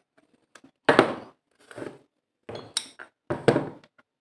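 A series of sharp metal clinks and knocks as bolts are taken out of an aluminium power steering pump housing and a wrench and tools are set down on the workbench, two of them louder, about a second in and again near the end.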